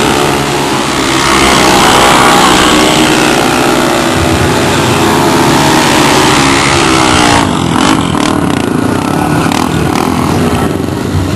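Loud motor-vehicle engine revving, its pitch rising and falling; the sound changes abruptly about seven and a half seconds in.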